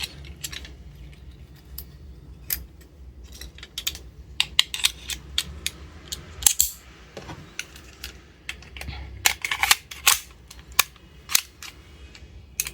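Sharp metal and plastic clicks and clacks of a Tokyo Marui 1911 Night Warrior gas blowback airsoft pistol being reassembled, its slide and parts being fitted and seated onto the frame, in irregular bursts with a few quick clusters.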